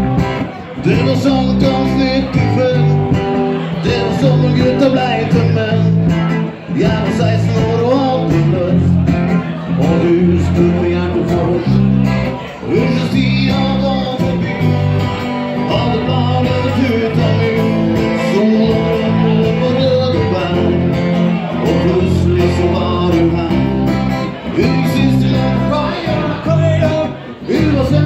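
Live band playing a song: electric bass and strummed acoustic guitars, with a man singing the lead.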